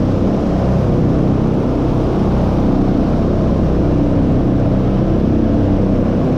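A row of large belt-driven barn exhaust fans running together: a loud, steady rush of moving air with a low motor hum underneath.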